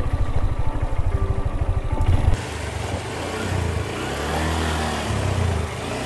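Motorcycle engine running with a fast, steady low throb. About two and a half seconds in, the sound changes abruptly to a steadier, higher engine note under a rushing hiss.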